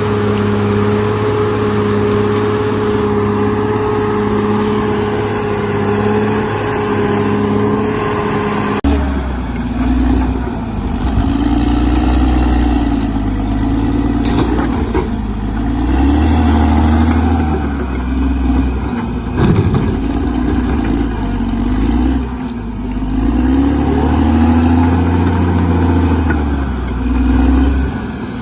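Bulldozer's diesel engine running: steady at first, then about nine seconds in it begins to rise and fall in pitch over and over as the machine works under changing load, with an occasional knock.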